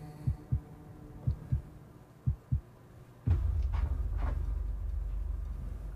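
Horror-trailer sound design: a slow heartbeat of paired low thumps, about one pair a second, then a sudden deep boom a little past halfway that settles into a steady low rumble, with three quick swishes over it.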